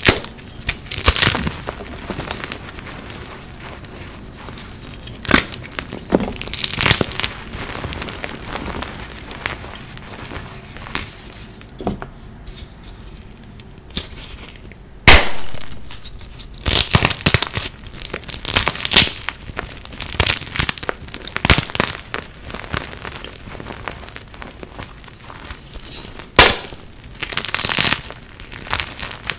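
Blocks of dyed gym chalk crushed and crumbled by hand into loose powder: gritty crunching and crumbling in irregular bursts. Three sharp snaps come as blocks break, the loudest about halfway through.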